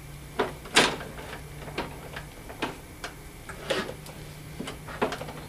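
Light, irregular clicks and ticks, about two or three a second, from the recoil starter and engine of a Cub Cadet 159cc walk-behind mower as the starter rope is pulled slowly and gently. The engine is only being turned over to circulate its fresh oil, not started.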